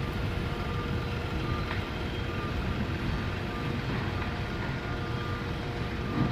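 A heavy vehicle's engine running steadily: a dense low rumble with a faint steady whine over it.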